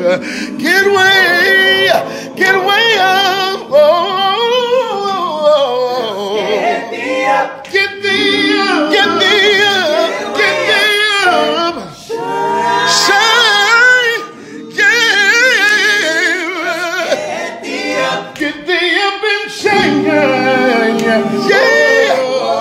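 A cappella men's vocal ensemble singing gospel in close harmony, several voices at once, with wavering vibrato and sliding runs.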